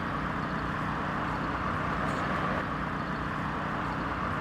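An engine running steadily, a constant low rumble with a hum on top.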